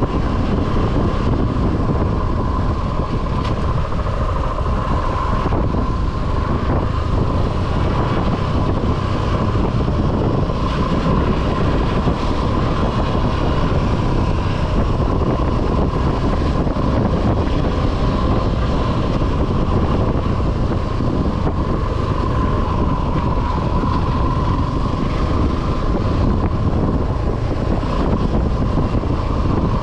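Suzuki V-Strom 250 SX's single-cylinder engine running at a steady cruise, under wind rush on the action camera's microphone, with a steady whine above the low rumble.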